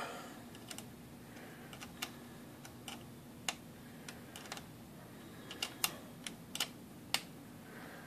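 Scattered light metallic clicks, irregular and a second or so apart, as an open-end wrench is fitted onto and turned on the nut at the bottom of an IBM Selectric typewriter's swing arm.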